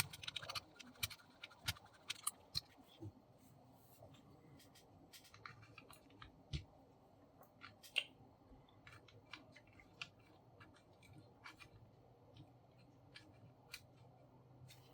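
Small irregular clicks and light scratching from hands handling a DYMO label maker's plastic case and parts. The clicks come thick for the first few seconds, then turn occasional.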